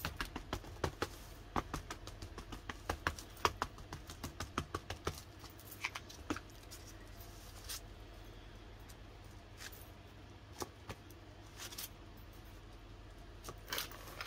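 A stamp inked on a StazOn ink pad and pressed down onto the paper again and again: a quick run of light taps that thins out to scattered taps after about five seconds.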